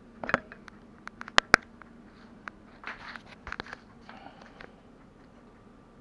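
Wooden spatula knocking and scraping against a frying pan as a ground pork and scallion omelette is stirred and pushed around. It comes as a scatter of sharp knocks with short scrapes, the loudest two knocks close together about a second and a half in.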